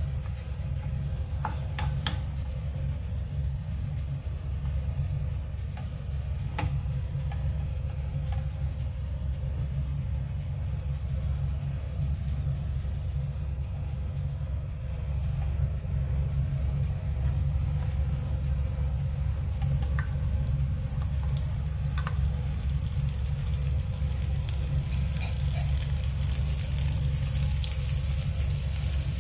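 Minced garlic sizzling faintly in oil in a nonstick frying pan under a steady low rumble, with a few sharp clicks of a wooden spatula against the pan. Near the end the sizzling grows busier as butter goes into the pan.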